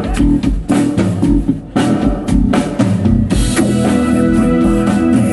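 Live rock band playing through stage speakers: drum kit keeping a steady beat over bass and electric guitar, with keyboard. About three seconds in the music fills out with more held notes.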